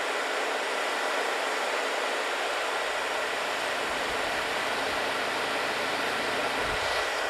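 Honda GX690-powered 12.5 kVA inverter generator running steadily in eco mode, a constant even rush of noise with a faint steady whine; eco mode has brought its engine speed down to about 3,200 rpm.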